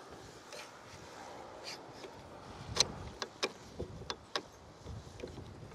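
Starlink Gen 2 cable plug being pushed into the end of the dish's mast: a series of short, sharp plastic clicks and knocks, most of them between about three and four and a half seconds in, as the connector clicks into place.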